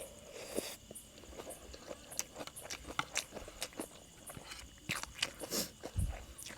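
Close-up eating sounds: chewing and biting a spicy yum salad, with many short crunchy clicks and wet mouth sounds.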